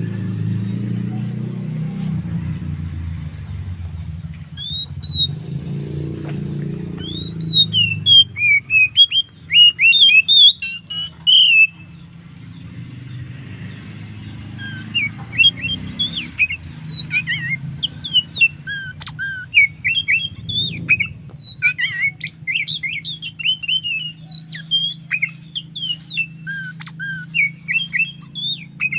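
Oriental magpie-robin (kacer) singing in full, free song: rapid varied phrases of short whistled and chirping notes, loudest about a third of the way in, then nearly continuous over the second half. A low rumble sits under the first few seconds, and a steady low hum under the later part.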